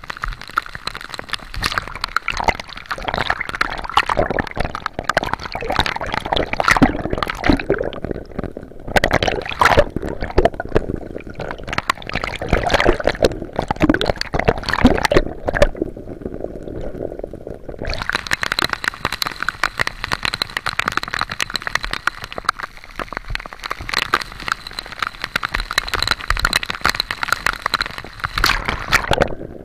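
Rough, storm-driven sea water sloshing and gurgling around a camera held at the surface, with the sound dulling briefly twice, about a quarter of the way in and just past halfway.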